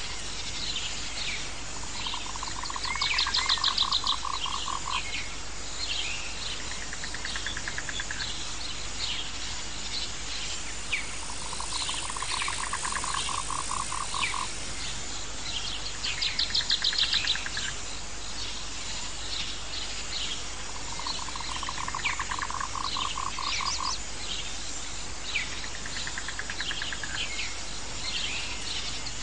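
Nature ambience of small animal calls: pulsed trills about a second long and many short high chirps. The same pattern comes round roughly every 13 seconds.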